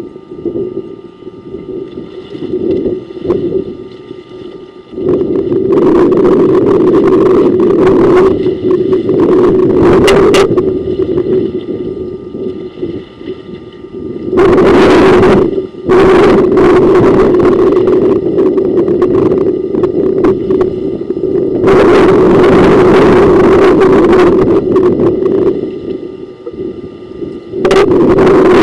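Wind buffeting the microphone in loud gusts that come and go for several seconds at a time, over a steady low hum.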